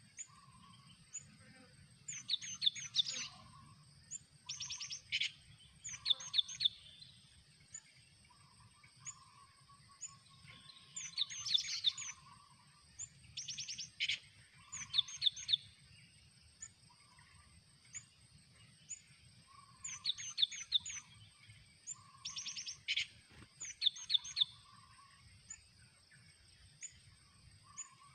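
Cinereous tit (gelatik batu) calling: short bursts of rapid, chattering notes repeated every second or two, the calls a trapper's caged decoy uses to lure wild birds in.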